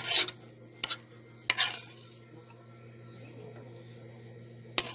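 Stir-frying broccoli in a pan: a cooking utensil stirs and scrapes the pan in four short strokes, the loudest right at the start, with a faint sizzle between them.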